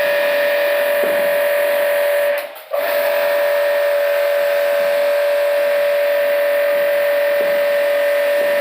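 A machine running steadily with a high whine over a hiss. It cuts out for a moment about two and a half seconds in, then runs on unchanged.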